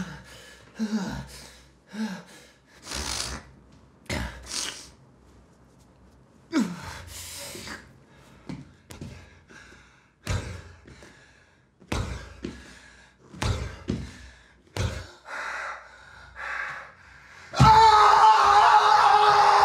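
A man gasping and groaning in fits, with several dull thuds in between. About eighteen seconds in, a loud, sustained sound with a steady pitch cuts in abruptly.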